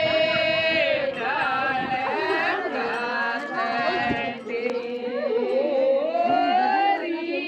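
Singing of a traditional Bishnoi wedding farewell song (vidai geet), with long held notes that slide between pitches.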